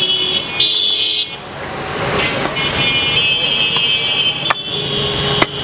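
Busy street traffic with vehicle horns honking, under two sharp chops of a butcher's cleaver on a wooden chopping stump near the end.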